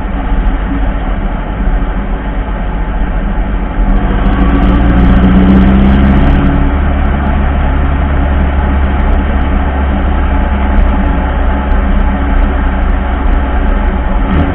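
Goka 1300 buggy running, its engine and drivetrain making a steady mechanical sound that gets louder and rises in pitch about four seconds in. This is the noise the owner puts down to a new drive shaft working under poor frame geometry.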